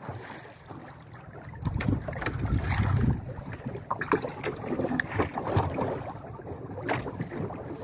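Wind on the microphone and choppy sea slapping against the hull of a small outrigger boat, with a few light knocks on board.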